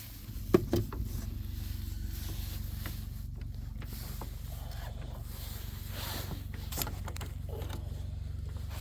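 A steady low mechanical rumble with a fine rapid pulse, starting after a couple of sharp clicks about half a second in.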